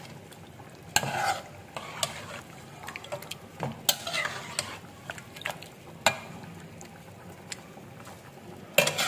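A metal spatula stirring chicken pieces and whisked yogurt in a metal cooking pot, with irregular scrapes and knocks against the pot over a faint sizzle from the hot oil.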